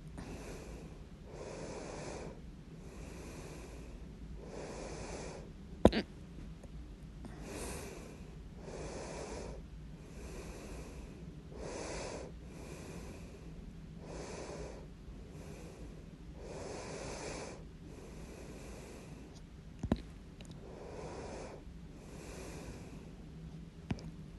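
A person with hiccups breathing audibly and steadily, broken by three sharp, loud hiccups: about six seconds in, again about twenty seconds in, and once more just before the end.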